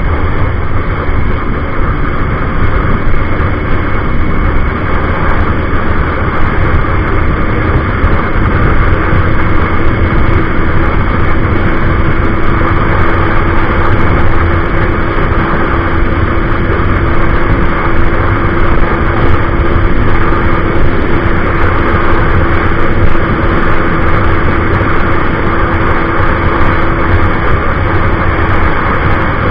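Heavy wind rush over the microphone of a motorcycle-mounted camera at about 130 km/h, over a KTM RC200's single-cylinder engine running at high, steady revs.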